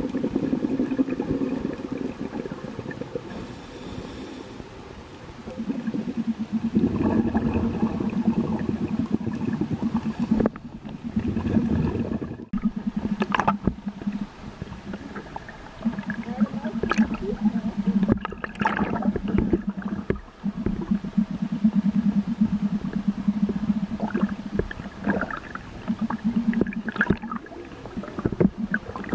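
A boat's motor heard through the water as a low, pulsing hum that fades in and out in stretches of several seconds, with bubbling and sharp knocks between.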